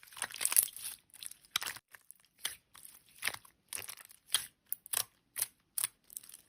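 Slime being pressed and squished by hand, giving a string of short, irregular crackles and pops, a little denser near the start.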